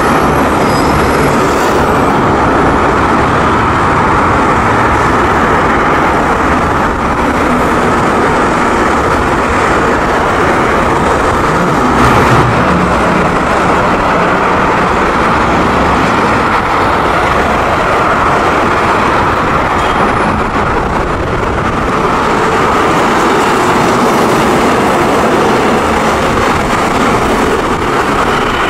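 Rubber-tyred metro trains running: a loud, steady rumble of tyres and running gear, with one brief clack partway through.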